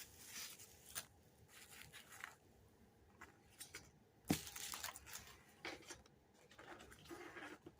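Faint, intermittent rustling and crinkling of paper and plastic packaging being handled, with one sharp tap about four seconds in.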